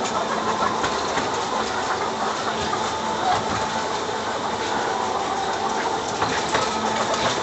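Automatic poultry-house inspection trolley travelling along its rail between the tiers of layer-hen cages: a steady running hum with scattered clicks.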